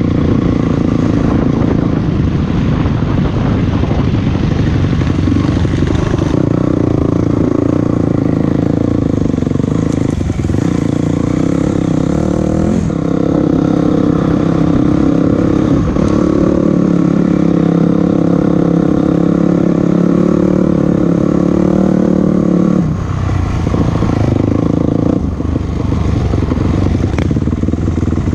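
Motorcycle engine running under load, its pitch stepping up and down every few seconds with throttle and gear changes, with some rattling. It eases off about three-quarters of the way through, then pulls again.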